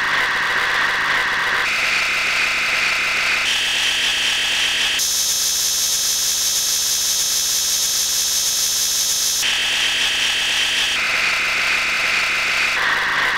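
A steady, loud hiss of filtered noise that jumps up in pitch in three sudden steps, holds as a high hiss for about four seconds mid-way, then steps back down the same way.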